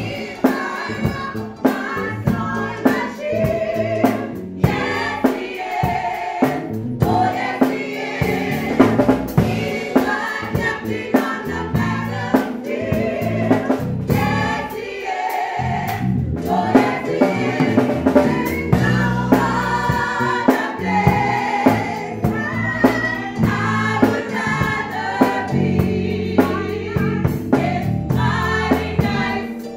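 Women's gospel choir singing together, with a steady beat and low bass notes from accompanying instruments underneath.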